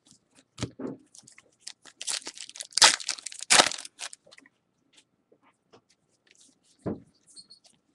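Baseball card pack wrapper crinkling and tearing open, loudest in a dense burst of crinkling about two to four seconds in, with a single light thump near the end.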